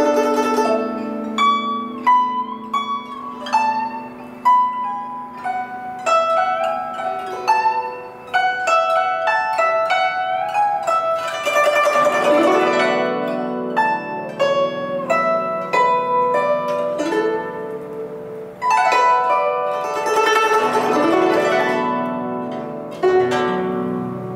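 Solo guzheng: a plucked melody on its metal strings, some notes bending in pitch as the other hand presses the strings beyond the bridges. Rapid sweeping runs across the strings come about halfway through and again about three-quarters of the way through.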